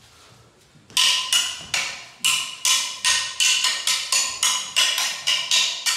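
Short kalaripayattu sparring weapons clashing together in a fast exchange: a run of about fourteen sharp, ringing clacks, roughly three a second, starting about a second in.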